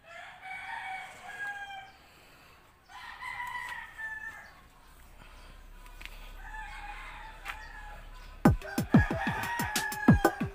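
A rooster crowing three times, each crow about a second and a half long. About eight and a half seconds in, music with a strong drum beat starts.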